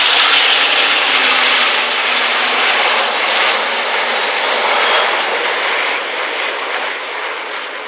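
Mixed formation of Red Arrows Hawk jets with piston-engined Hurricanes and Spitfires flying over, a loud steady rush of jet and propeller engine noise that eases off near the end.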